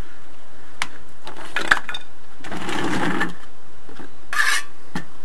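Steel trowel scraping and clinking in a plastic bucket of mortar as mortar is scooped up: a few sharp clicks and two longer scrapes, one about halfway through and a shorter one near the end.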